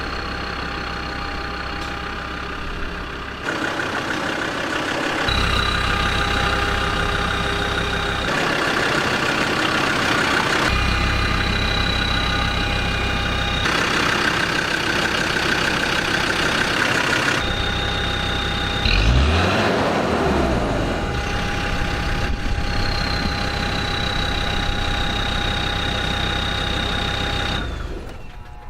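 Land Rover Discovery 2 Td5's five-cylinder turbodiesel engine running in a series of short cut-together clips, steady for the most part, with a brief rise and fall in revs about two-thirds of the way through.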